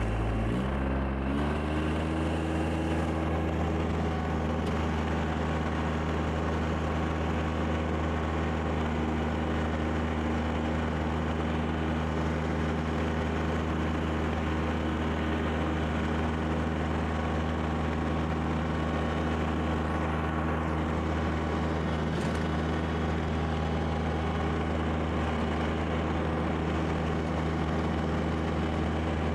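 Kubota BX2680 tractor's three-cylinder diesel engine running the rear-mounted snowblower. The revs rise about a second in, then hold steady under load.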